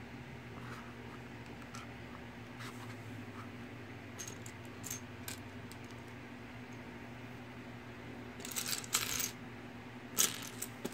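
Plastic Mega Bloks building bricks clicking and rattling as they are handled and pressed onto a baseplate, with scattered clicks and a quick flurry of them about eight to nine seconds in and again near the end.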